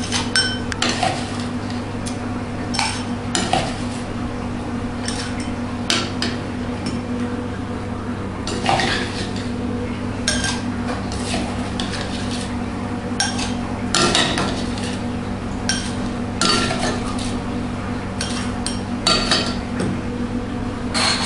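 Crushed ice being scooped into tall glasses with a metal scoop: irregular clinks and scrapes of metal against ice and glass, over a steady low hum.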